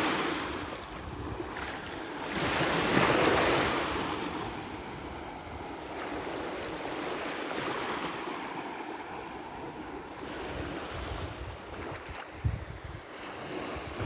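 Small sea waves washing up onto a sandy shore, swelling loudest at the start and again about three seconds in, with wind rumbling on the microphone.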